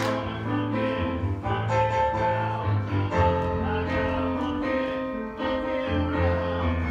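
Piano-led accompaniment music with a bass line, sustained notes and no clear singing; the low bass drops out for a couple of seconds midway and comes back near the end.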